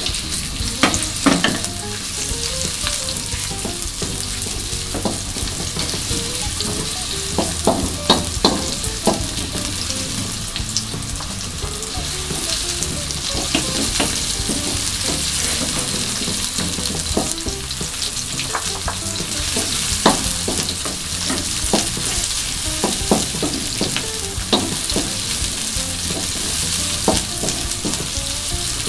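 Sliced garlic, shallots and chillies sizzling in hot oil in a metal wok, with a steady hiss, stirred by a spatula that scrapes and knocks against the pan now and then.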